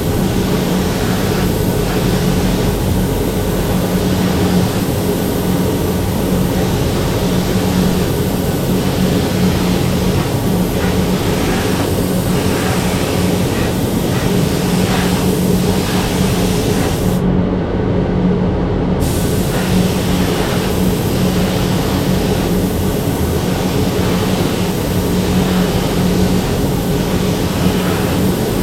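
Steady loud machine hum with a constant hiss, like shop air equipment running during cerakote work, with no change in pace.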